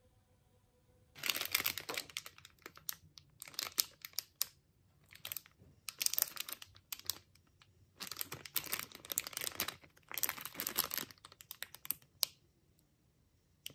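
Plastic wrapper of a Nextar cookie bar crinkling as it is handled and turned over in the hands, in irregular bursts of crackling from about a second in, dying away near the end.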